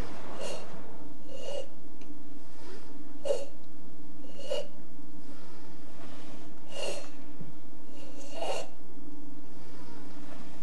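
A karateka's forceful, audible kata breathing: about seven short, noisy breaths spaced one to two seconds apart as he moves slowly through an open-hand kata, over a steady low hum.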